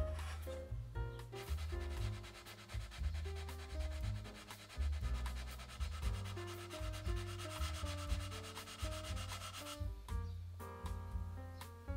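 Sanding block rubbed back and forth on a walnut box, a fast even run of rasping strokes that stops about ten seconds in. Soft background music plays underneath.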